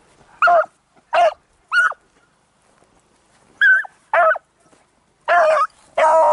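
Beagles barking: three short barks, a pause of about a second and a half, two more, then two longer drawn-out bays near the end. These are hounds giving voice while trailing a rabbit.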